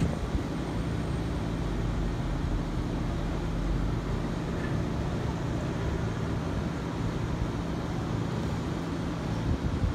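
Steady low hum inside a passenger train standing at a platform, the sound of its onboard equipment running, with a couple of steady low tones under it.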